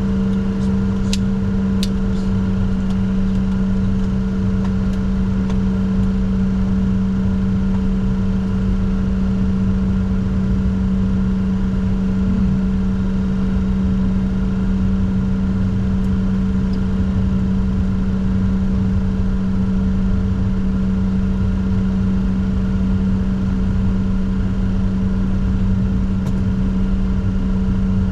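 Steady drone inside the cockpit of a Bombardier Challenger 604 with its twin turbofan engines running: a strong steady hum with a few fainter tones over a low rumble, unchanging throughout, and two faint ticks early on.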